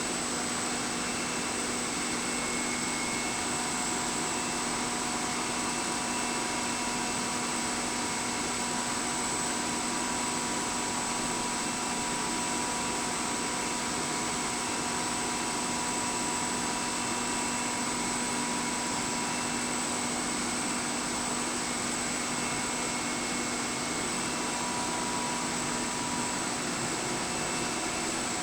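Automatic bottle washing-filling-capping machine running: a steady mechanical whir with a constant hum and a high thin whine, without any knocks or clinks.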